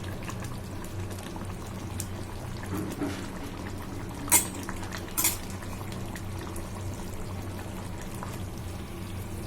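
Mutton chops boiling in a masala and onion gravy in a pan, a steady bubbling over a low hum. Two sharp clinks about four and five seconds in.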